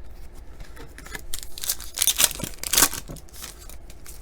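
Trading-card pack wrapper crinkling and tearing: a short cluster of sharp rustles about one to three seconds in, loudest near the middle.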